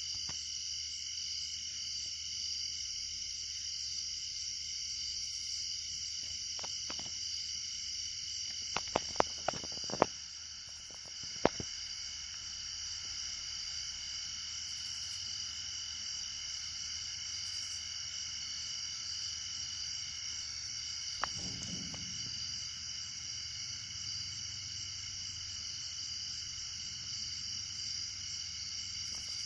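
Steady night chorus of calling animals, mostly frogs, holding several high pitches without a break. A few sharp clicks come about a third of the way in.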